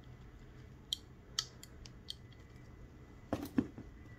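A bayonet's spring release catch being pressed and let go, with a few small metal clicks. Near the end come two louder knocks as the metal scabbard is handled against the cardboard box.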